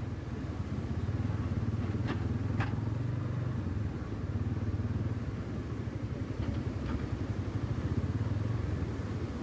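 A vehicle's engine running at a steady pace while on the move: a low, even drone with a fast pulsing to it.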